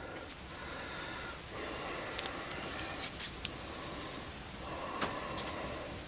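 Faint rustling and a few light ticks from a gloved hand turning a cut-out copper tee fitting wrapped in duct tape, over a low, steady background noise.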